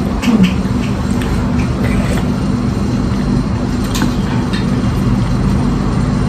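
A steady low mechanical hum, with a few faint clicks of utensils against bowls.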